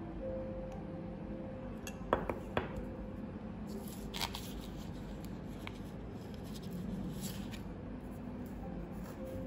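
Small metal emblems being handled and set down on a paper-covered table. A few sharp clicks come about two seconds in, followed by soft rustling and scraping of fingers against the metal and paper.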